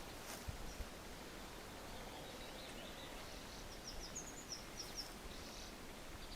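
Faint outdoor background hiss with a small bird chirping, a quick run of short high notes in the second half.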